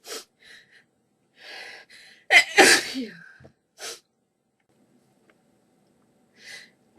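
A person sneezing during a sneezing fit: one loud sneeze about two and a half seconds in, with quieter breaths before and after it, and the next sneeze just beginning at the very end.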